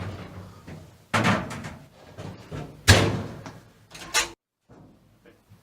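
Heavy bangs from a clothes dryer with a laptop put in it: three loud thuds, irregularly spaced and the loudest near the middle, before the sound cuts off abruptly.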